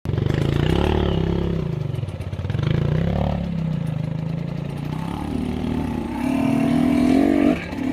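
Enduro motorcycle engine revving: the pitch swings up and down twice, then climbs to a higher, steadier pitch about five seconds in before dropping off sharply just before the end.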